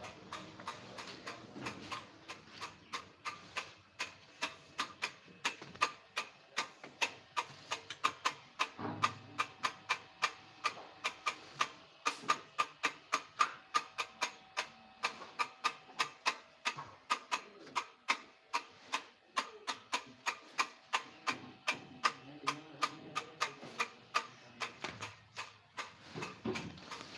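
A long, even run of sharp clicks, about three a second.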